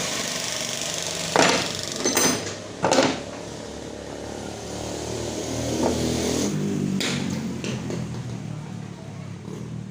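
Steel parts clanking three times. Then a motor vehicle's engine passes, growing louder and then fading away.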